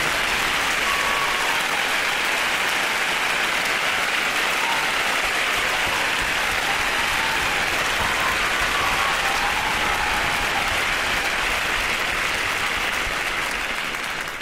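Audience applauding, dense steady clapping that fades out at the end.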